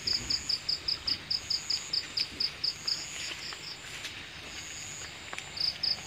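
Insect chirping: a rapid, even train of short high-pitched chirps, about five a second, that pauses for a couple of seconds past the middle and then resumes. A fainter steady high buzz from another insect comes and goes behind it.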